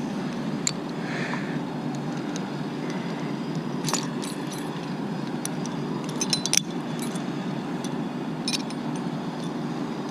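Metal climbing hardware, carabiners and rigging gear, clinking and jingling in short bursts, the busiest bunch a little past the middle, over a steady low rumble.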